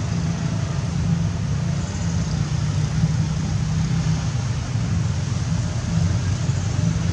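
Steady low rumble of outdoor background noise, with no distinct events and no animal calls.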